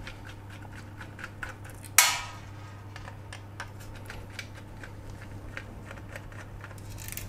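Small screwdriver turning screws out of a graphics card's VRM cooler, a run of small light clicks, with one sharp metallic clink that rings briefly about two seconds in. A faint steady hum sits underneath.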